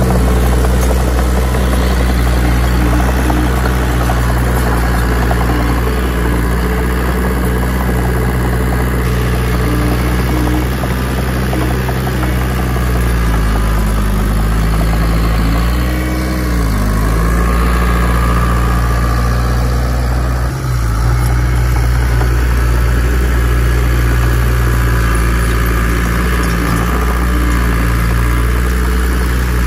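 Heavy diesel engine of earthmoving machinery running steadily under work, its note dipping and rising again briefly a little past the middle.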